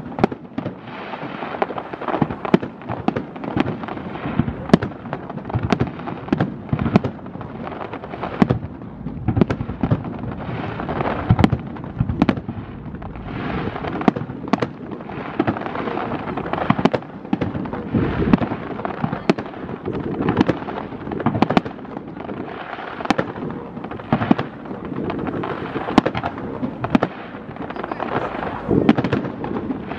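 Aerial fireworks display: shells bursting in a rapid, continuous run of bangs, several each second, over an unbroken rumble from the bursts.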